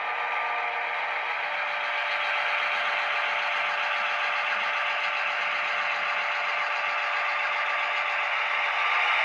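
Model diesel locomotive running along the layout track with a steady whir from its motor and wheels and a few steady tones over it. It grows a little louder as the locomotive nears.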